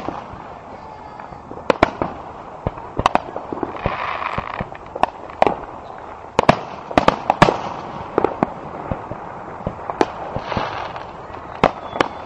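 Aerial fireworks shells bursting: an irregular run of sharp bangs, many in quick succession, with two longer hissing stretches in between.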